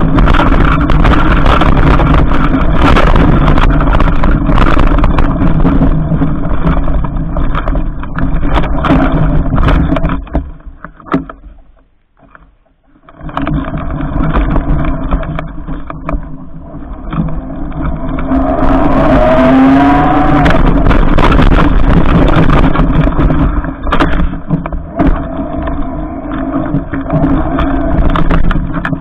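Electric bike ridden through deep snow: a loud rushing of tyres and wind with a steady motor whine, scattered knocks from bumps, and a brief drop to quiet near the middle. Then the motor whine rises as it speeds up again.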